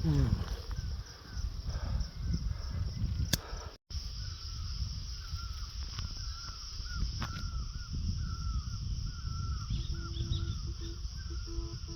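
Woodland ambience: birds calling in short repeated notes over a steady high insect-like drone and a low rumble, with a brief sudden drop-out about four seconds in.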